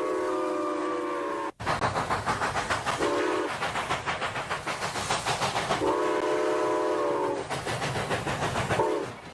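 Train sound effect: a multi-tone train whistle is held, then cut off abruptly. A fast, even chugging rhythm follows, broken by a short whistle blast and then a longer one.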